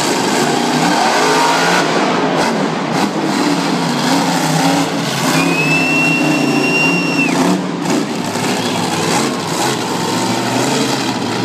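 Monster truck engine revving over a loud, continuous din. About halfway through, a high steady whistle sounds for about two seconds.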